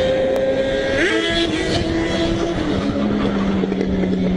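Suzuki GSX-R1000 sportbike engine running under wind noise while riding, its pitch dropping in steps about a second in and again near three seconds in.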